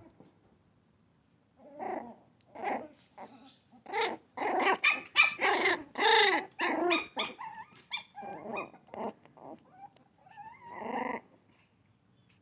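A dog vocalizing in a string of short pitched calls, densest and loudest in the middle, with one longer call near the end.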